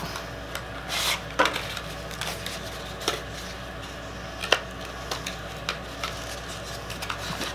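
Hands unwrapping a small essential-oil bottle from its packaging: scattered light clicks and rustles, the sharpest about four and a half seconds in.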